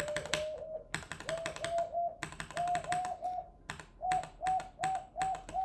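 Computer keyboard key pressed over and over, about three times a second, each press setting off a short electronic tone from the TouchDesigner patch as its counter steps up one count.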